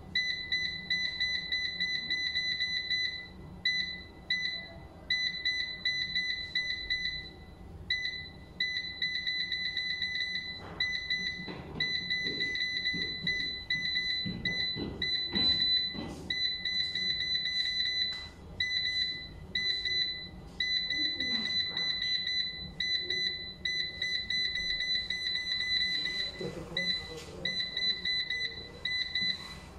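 Crown Xavier 5.6 kW hybrid inverter's touch-panel beeper sounding a high-pitched beep in long runs of rapid repeated beeps with brief breaks, as the up key is held to step the battery cut-off voltage setting upward.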